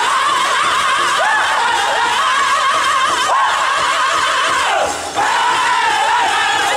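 Powwow drum group singing a men's chicken dance song in high, wavering voices while striking a large shared drum with padded sticks. The sung phrases fall in pitch at their ends, with a brief break about five seconds in.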